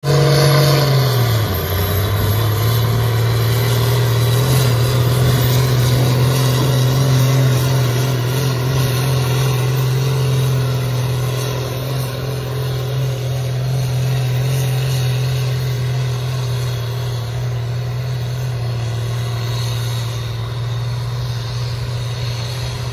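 A pulling tractor's diesel engine runs hard under full load as it drags a weighted sled, pouring out black smoke. Its pitch drops about a second in, then holds steady, slowly growing fainter as the tractor goes down the track.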